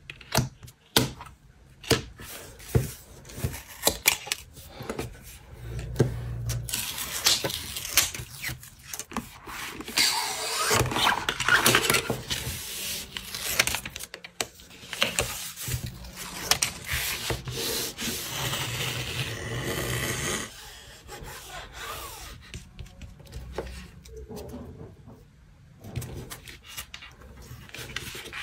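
Kraft cardstock being handled on a desk: sharp taps and clicks as the sheet and a ruler are set down and adjusted, with longer stretches of paper sliding and being rubbed flat.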